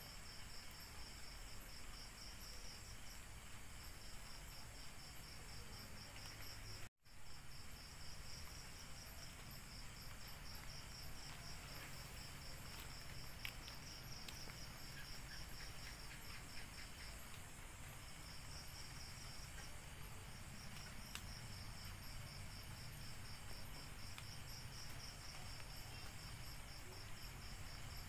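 Night insects chirping in steady pulsed trains over an even hiss of rain, with a split-second dropout about seven seconds in.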